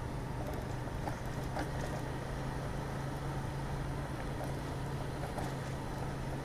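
Kawasaki Fury 125's small single-cylinder four-stroke engine running at a steady cruising speed, a low even hum under a hiss of road and wind noise.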